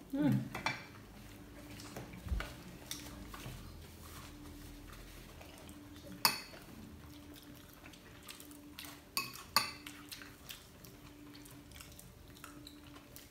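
Metal fork clinking and scraping against a bowl of coleslaw, with scattered sharp clinks, the loudest about six seconds in and two more close together around nine to ten seconds in.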